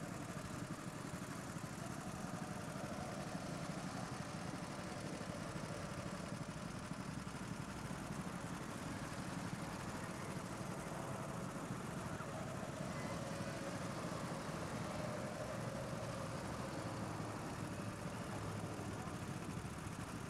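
Go-kart engines running steadily on the track, a continuous mechanical drone with a faint wavering engine tone.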